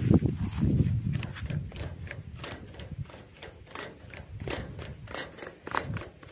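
A low rumble of camera handling noise at the start, then a run of light, irregular clicks and taps.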